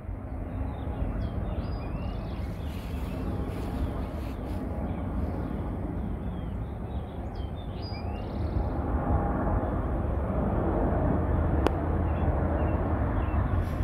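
Jet engines of an Airbus A350 on final approach with gear down: a steady rumble that grows louder in the second half as the aircraft nears.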